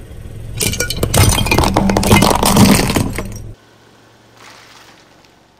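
A car tyre rolls onto a hard painted toy figurine and crushes it: a loud run of cracking, crunching and clinking lasting about three seconds over the low hum of the car. It stops abruptly, leaving only a faint low hum.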